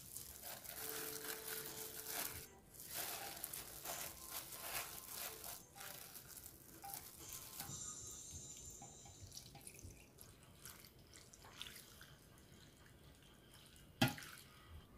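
Pickling brine poured from a bowl over water dropwort (minari) stems packed in a glass container: faint trickling and dripping, with light rustling and tapping of the stems as they are laid in, and one sharper knock near the end.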